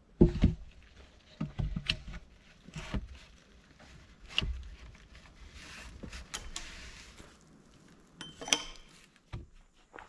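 Scattered knocks and thumps from hand work with soil and logs, with a spell of rustling, scraping noise a little past the middle.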